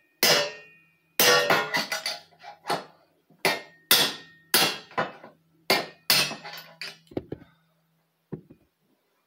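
A 32-ounce hammer striking a steel punch to drive a sealed bottom bracket bearing out of a BMX frame. About fifteen sharp metal-on-metal blows come at an irregular pace, some ringing briefly, and stop about seven seconds in, with one lighter knock after that.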